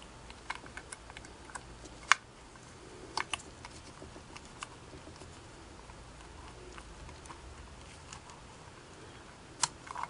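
Small scattered clicks and taps of metal parts being worked by hand inside a Singer 401A sewing machine as the cam follower is fitted back toward its slot, with one sharper click about two seconds in.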